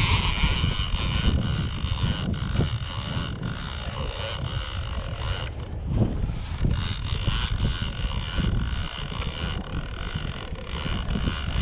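Large conventional sturgeon reel being cranked against a hooked fish, its gears giving a steady high whir that stops briefly about halfway and then resumes. Wind rumbles on the microphone throughout.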